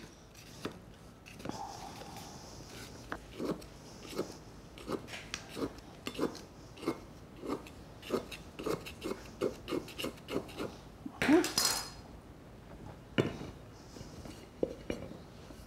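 A table knife run around the inside of an aluminium ring (tube) pan to loosen a baked loaf, the blade knocking against the metal about twice a second, with a louder metal clatter about 11 seconds in.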